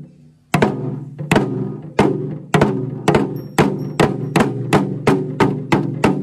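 Kerala folk drums beaten in a steady rhythm: after a brief pause, sharp strokes come about twice a second and quicken towards the end, the drums ringing between strokes.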